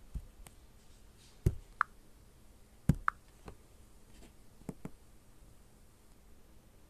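Fingertip taps and knocks on a tablet and its touchscreen: a handful of single taps over the first five seconds, the two loudest about a second and a half apart, each followed by a short high blip.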